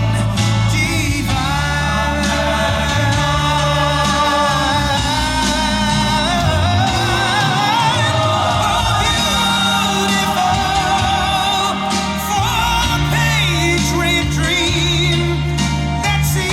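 Music with singing: long, wavering sung notes over sustained chords and a steady bass, in a gospel or choir style.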